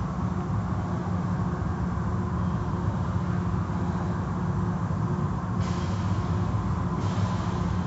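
Automatic tunnel car wash equipment running: a steady low machine hum with the wash of water and foam cloths over the car. A sharper hiss, like a spray bar, comes in for about a second and a half past the middle.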